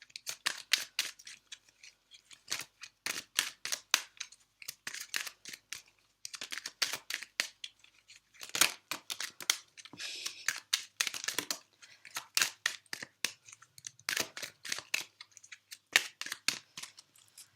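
A tarot deck being shuffled by hand: a fast, irregular run of crisp card snaps and flicks, broken by a few short pauses.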